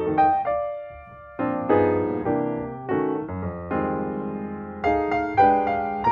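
Background music played on a keyboard instrument, single notes and chords struck one after another and left to ring, with a short lull about a second in.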